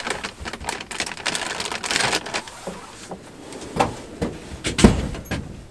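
Handling noises at a toolbox drawer: a run of sharp clicks and short rustles, with a heavier thump near the end.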